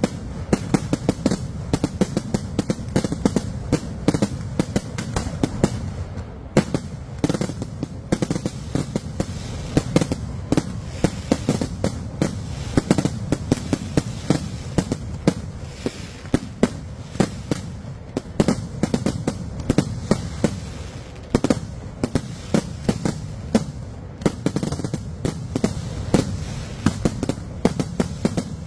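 Kerala temple-festival fireworks (vedikkettu) firing in a continuous barrage: many sharp bangs and cracks a second as shells launch from the ground and burst overhead, over a steady low rumble.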